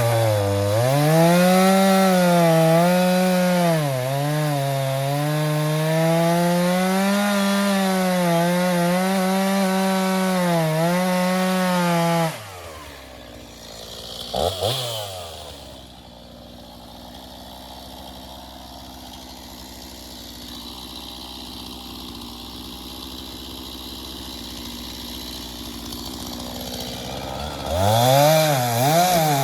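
Gas chainsaw cutting at high revs into a dead tree, its pitch dipping and recovering under load. About twelve seconds in it drops to idle, gives one short rev, idles steadily, then revs back up near the end.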